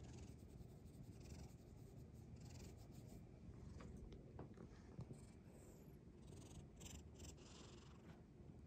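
A house cat purring faintly, a steady low rumble, while fingers stroke its fur, giving soft scratchy rustles now and then.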